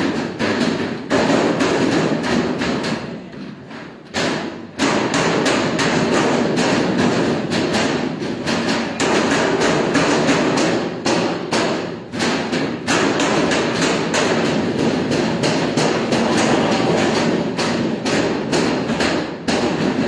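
Noodle dough being stretched and repeatedly slapped and thumped onto a stainless steel table in quick succession, with a short lull about three to four seconds in.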